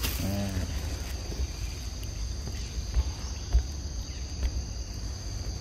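Insects buzzing steadily in two high, constant tones, over a low rumble. A brief low, voice-like sound comes about a quarter second in.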